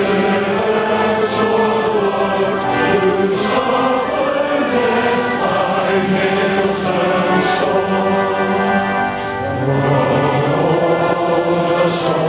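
A choir singing slowly in long sustained chords, with a short break between phrases about three-quarters of the way through.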